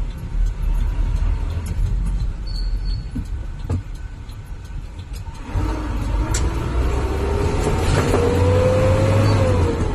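Truck engine heard from inside the cab, a low rumble that grows louder about halfway through as the truck accelerates, its note rising steadily and then dropping off near the end.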